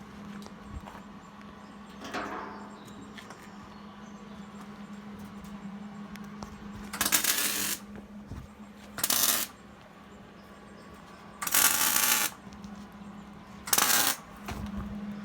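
Electric welder laying short welds: four separate bursts of crackling arc noise, each under a second long, over a steady low hum.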